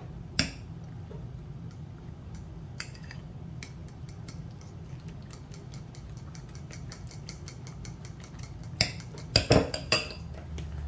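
Metal fork beating eggs and grated pecorino romano in a glass bowl: quick clicks of metal on glass, about five a second, with a few louder clacks near the end.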